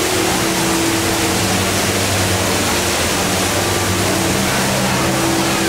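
The HSBC Rain Vortex indoor waterfall: a steady rush of water falling from the roof opening and crashing into the pool below.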